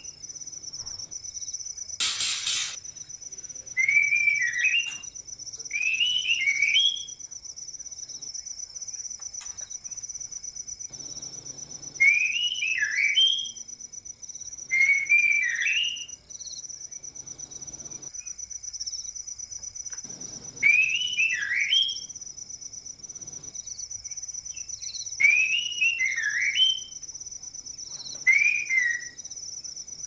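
White-rumped shamas (murai batu) calling to each other in courtship: short whistled phrases that swoop up and down, given in clusters every few seconds, over the steady high trill of crickets. A brief burst of hissing noise about two seconds in.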